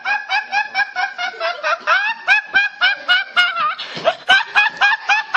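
A young man laughing uncontrollably: a rapid, high-pitched giggle of short repeated bursts, about five or six a second, briefly broken about four seconds in.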